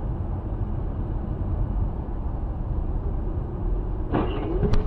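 Steady low road and engine rumble from inside a moving car, picked up by a dash cam. Near the end a brief higher sound with a wavering tone comes in, with a sharp click.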